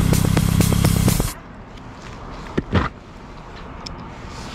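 Yamaha Tracer 9 GT's three-cylinder engine idling, then shut off abruptly about a second in. Two short knocks follow a second or so later over quiet background.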